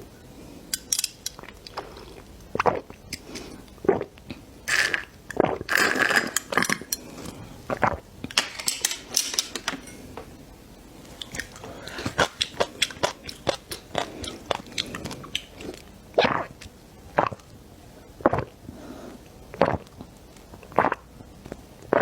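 Crunchy food being bitten and chewed close to the microphone: a run of irregular sharp crunches, thickest a few seconds in, then spaced-out single crunches.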